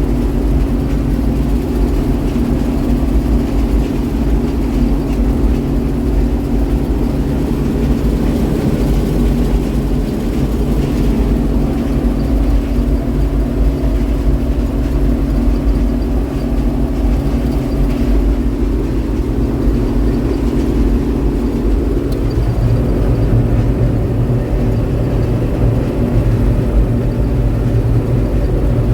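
Farm machinery engine running steadily during corn harvest, a constant loud drone whose tone changes about 22 seconds in.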